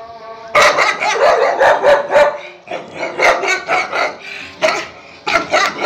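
Dog barking rapidly and over and over at a stranger, territorial barking to keep them from entering the house. The barks start about half a second in and come several a second, with a brief pause near the middle.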